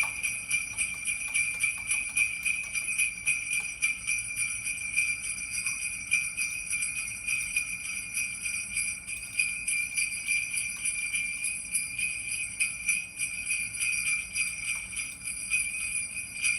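Jingle-bell (sleigh bell) sound effect played from a Google Home smart speaker: a cluster of small bells shaken rapidly and continuously in a steady, high jingle.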